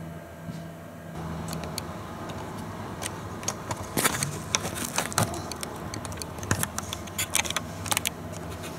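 Camera handling noise: irregular sharp clicks and taps from fingers on the camera body, in clusters from about three seconds in, over a steady hiss that rises about a second in.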